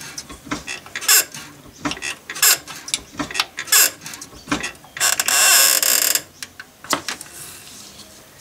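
Clutch hydraulics being bled: a run of clicks and creaks as the clutch pedal is pumped, then a hiss of about a second, about five seconds in, as the slave cylinder's bleed nipple is cracked open with a spanner and fluid and air spurt out into the bleed tube.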